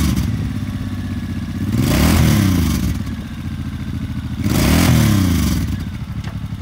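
2019 Suzuki Boulevard M90's 1500cc fuel-injected, liquid-cooled V-twin being revved in place: a rev falling back at the start, then two more throttle blips about 2 and 5 seconds in, each rising and dropping back toward idle.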